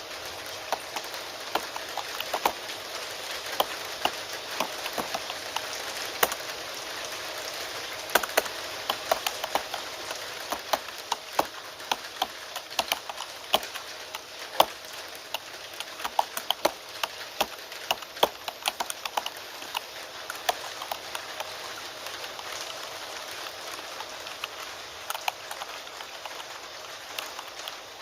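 Steady rain with computer keyboard typing over it: irregular runs of sharp key clicks, thickest in the middle and thinning toward the end.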